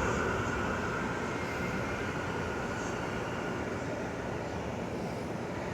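Two portable dehumidifiers running side by side on their turbo fan setting, a steady rush of air with the compressors running quietly underneath.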